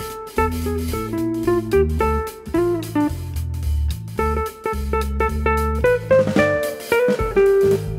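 Background music: an upbeat guitar-led instrumental with bass and drums.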